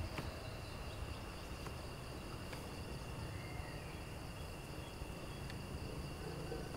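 Steady high-pitched insect chirring over faint outdoor background hiss.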